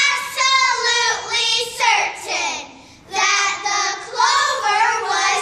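A small group of young girls singing together, two phrases with a short break about halfway.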